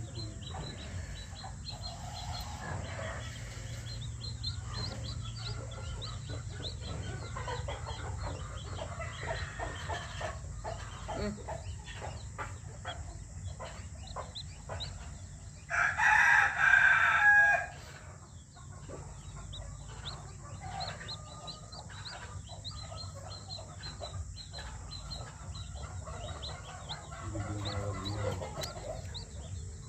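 A flock of free-range desi chickens clucking and chattering steadily, with a rooster crowing once, loudly, a little past halfway.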